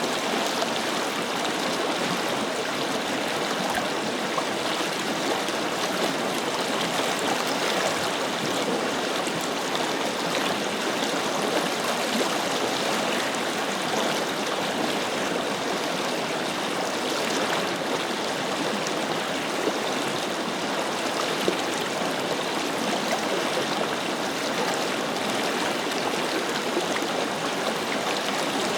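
Forest river flowing steadily over stones, a continuous rushing and splashing of water.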